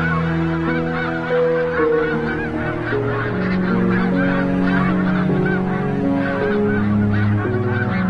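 A large flock of snow geese calling together: a dense, continuous chorus of overlapping honks. Soft held music chords sound underneath, shifting every second or two.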